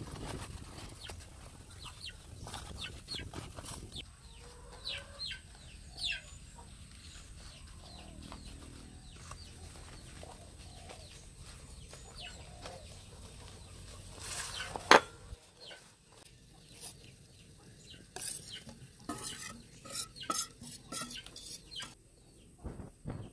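Banana leaves rustling and crinkling as they are pressed into a metal pan, with scattered light clinks and knocks and one sharp knock about two-thirds of the way through. Chickens cluck at times in the background.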